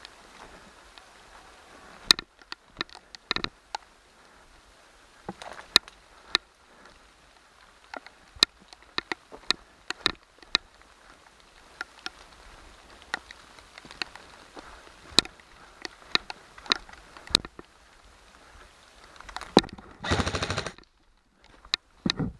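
Airsoft guns firing: scattered single shots and snaps, some close and some farther off, then near the end a close full-auto burst of about a second from an electric airsoft rifle, followed by a shorter burst.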